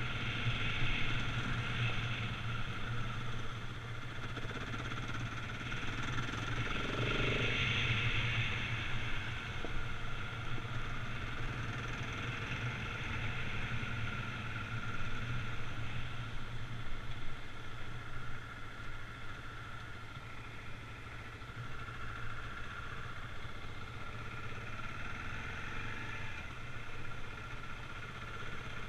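Husqvarna 701 Enduro's single-cylinder four-stroke engine running steadily at low revs while the bike rides a gravel track, heard from a camera mounted on the bike; a little quieter past the middle.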